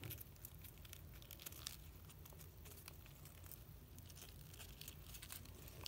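Faint rustling and creasing of origami paper being folded by hand, with scattered soft crinkles.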